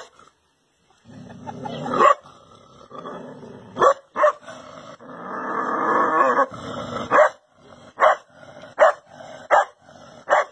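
A dog barking at its own reflection in a mirror: a few scattered barks, then a run of short, sharp barks about one every 0.8 seconds in the second half.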